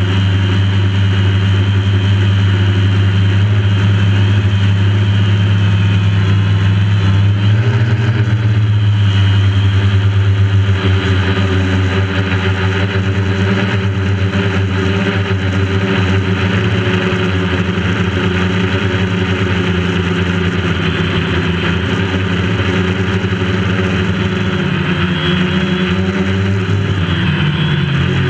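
DJI Phantom quadcopter's electric motors and propellers buzzing steadily, heard close up from on board. The pitch wavers about eight seconds in and again near the end.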